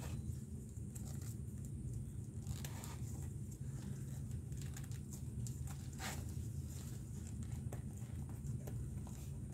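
Leather glove lace being handled and pulled through the lacing holes of a baseball glove's web: scattered light rustles and clicks over a steady low hum.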